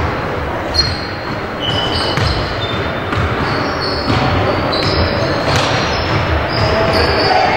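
Indoor basketball game sounds echoing in a large gym: a ball bouncing on the hardwood court, sneakers squeaking in short high chirps, and voices of players and spectators.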